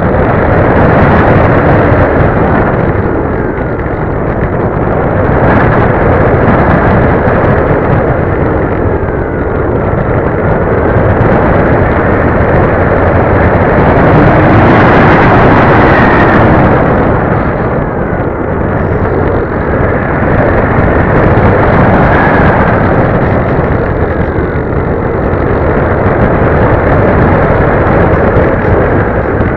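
Onboard mini camera's microphone on a flying RC plane, filled with heavy wind rush and the plane's motor and propeller noise. It swells and eases over a few seconds at a time and is loudest about halfway through, with a faint whine now and then gliding up and down in pitch.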